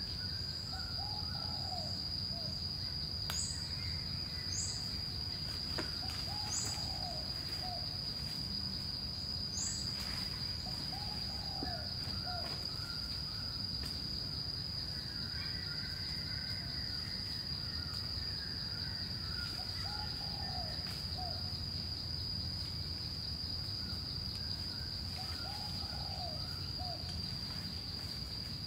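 Forest ambience: an insect's steady high-pitched drone, with a bird's low hooting call repeated every few seconds and a few short high chirps in the first ten seconds.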